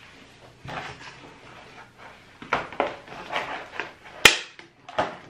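A person chewing a piece of vegan caramel chocolate: soft, scattered mouth and chewing noises, with one sharp click a little after four seconds in.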